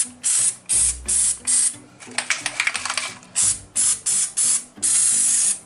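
Aerosol can of spray grease hissing in about a dozen short bursts, sputtering about two to three seconds in, with a longer hiss near the end: the can is giving out propellant but little or no grease.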